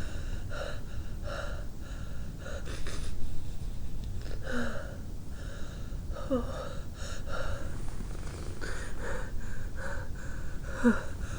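A person's repeated short, gasping in-breaths with brief voiced catches: the breath hitching of a sneeze coming on while it is being held back. One louder breathy burst comes about three seconds in.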